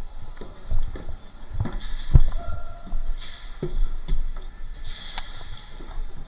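Scattered knocks and low thumps of players moving and handling gear, with one sharp knock about two seconds in.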